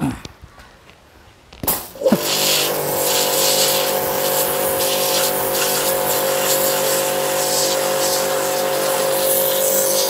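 JPT 2400-watt electric pressure washer switching on just under two seconds in, briefly rising in pitch as it comes up to speed, then running steadily: a steady motor-and-pump hum over the hiss of the high-pressure water jet cutting into a red brick.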